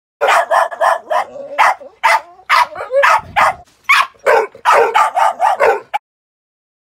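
Border Terrier barking over and over in quick, sharp, high barks, with a brief whine between barks in the second second; this is reactive barking, set off by other dogs. The barking cuts off suddenly about six seconds in.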